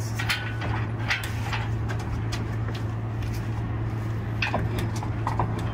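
Scattered light clicks and knocks of metal as a bus transmission is worked loose from the engine, over a steady low hum.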